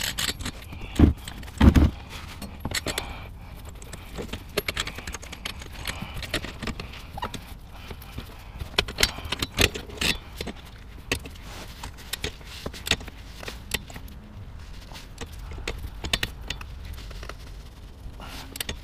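Wrench ratchet clicking in short irregular runs as the gearbox plug bolt is tightened towards 50 Nm, with small metal knocks and two heavier knocks near the start.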